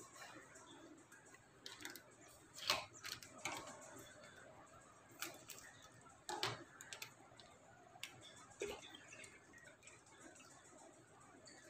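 Faint handling sounds: scissors snipping open a plastic milk pouch and the pouch crinkling, with a few sharper clicks scattered through.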